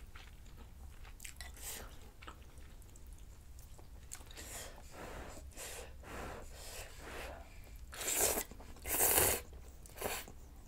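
Close-miked chewing and slurping of glass noodles and kimchi from a bowl of soup, in scattered wet mouth sounds. Two louder breathy bursts come near the end.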